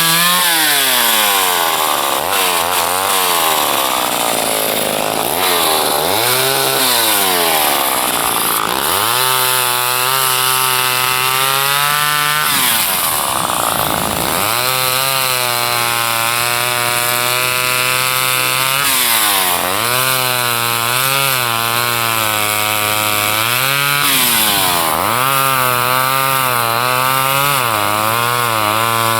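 Two-stroke chainsaw cutting wood. Its engine speed sags deeply several times as the chain bites, then climbs back and holds at full revs.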